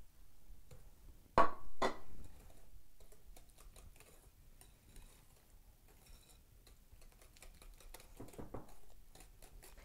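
Wire whisk stirring eggs into brownie batter in a glass mixing bowl, the wires making faint, quick clicks against the glass. Two louder knocks come between one and two seconds in.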